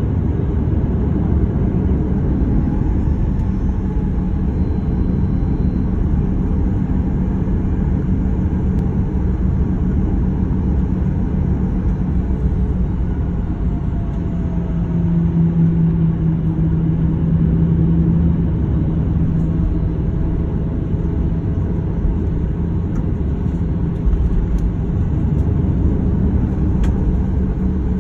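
Cabin noise of a Boeing 737-900 taxiing at idle thrust, heard from a window seat over the wing: the CFM56-7B turbofans give a steady low rumble with a steady hum, with no spool-up.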